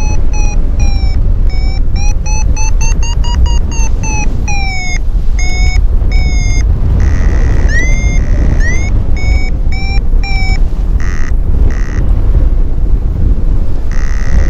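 Paragliding variometer beeping its climb tone: a run of short electronic beeps whose pitch rises and falls and whose pace slows with the changing climb rate, the sign of weak, patchy thermal lift. The beeps thin out and break off for a moment in the last few seconds as the climb fades. Steady wind rush on the microphone runs underneath.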